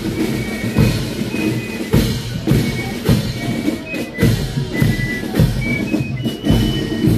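Parade marching band playing a march: drums keep a steady beat, with a heavier bass drum stroke about once a second and short high melody notes above.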